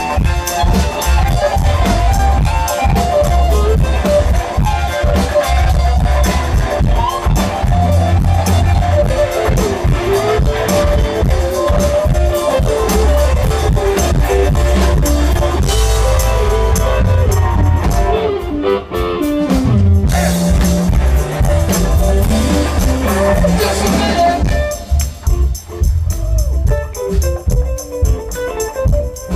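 Live Southern rock band playing loud through a PA: electric guitars, bass and drum kit, with a wavering melodic lead line. From about 25 seconds in, the cymbals drop back and the sound thins out.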